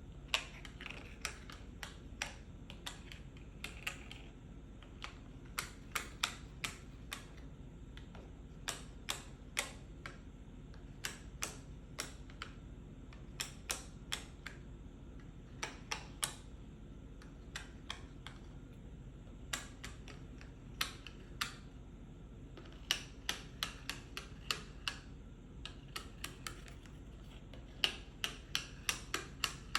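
Fingers tapping on a pill box: crisp, clicky taps in quick irregular runs with short pauses, over a faint steady low hum.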